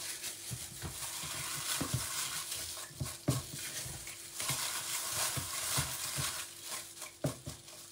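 Apples being swished and rubbed by hand in a bowl of salted water and lifted out, with water splashing and dripping and a few short knocks of fruit against the bowl.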